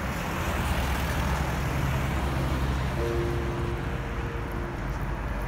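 A car driving along a road, a steady low rumble of engine and tyres, with music coming in about halfway through as two held notes.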